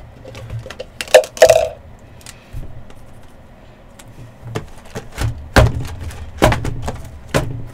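A 12-sided die rattling in a plastic cup and clattering out about a second in, then cardboard hobby boxes knocked and thudded down as they are moved and stacked, with three louder thuds in the last few seconds.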